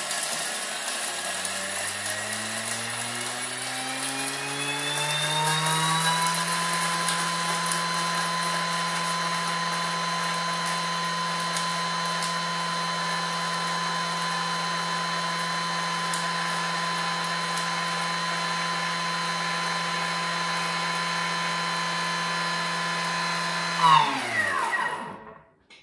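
Thermomix TM6 blender motor running at top speed, grinding macadamia nuts and roasted whole spices to a powder. Its whine rises in pitch over the first six seconds, holds steady and high, then winds down and stops near the end.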